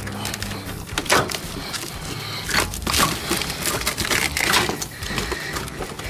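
Old black fibrous padding crackling and tearing as it is pulled by hand out of a car's body panel, in irregular bursts.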